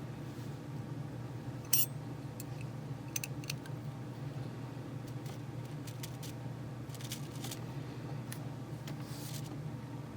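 Scattered small clicks and light taps of tools and small parts being handled while taking apart an AlphaHound radiation detector, the sharpest about two seconds in, over a steady low hum.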